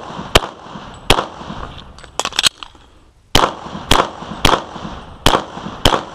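Pistol shots fired in a string during an IDPA course of fire: single sharp cracks about half a second to a second apart, a quick cluster of lighter pops a little after two seconds in, a pause of roughly a second, then more evenly spaced shots.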